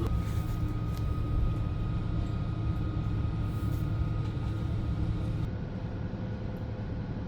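Steady low mechanical hum with faint, steady whining tones above it; the higher hiss drops away about five and a half seconds in.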